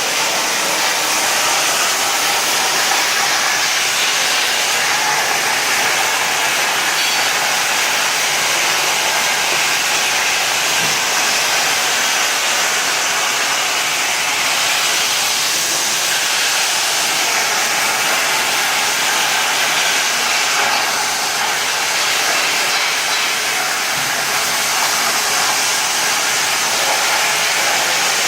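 CNC plasma cutter's torch cutting, a loud steady hiss.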